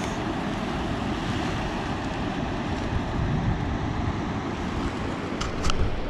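Steady rush of the high, fast-flowing river below a dam, with wind buffeting the microphone; two short clicks near the end.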